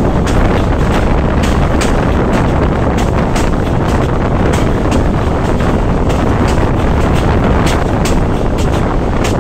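BZmot diesel railcar running along jointed branch-line track, heard at the open side window: a loud, steady rumble of engine and wheels with wind rushing past, broken by frequent sharp clicks and knocks from the wheels on the rails.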